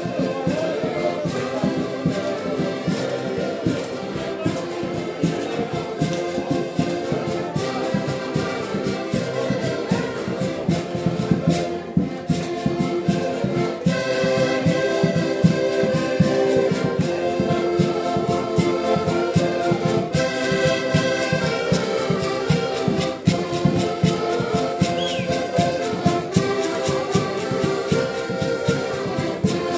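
Portuguese folk ensemble of several button accordions and bass drums playing together: the accordions hold chords and melody over a steady drum beat.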